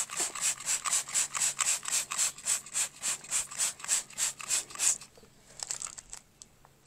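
Handheld trigger spray bottle squeezed rapidly, about three to four squirts a second, misting degreaser onto an engine cylinder head. The spraying stops about five seconds in, leaving only a few faint clicks.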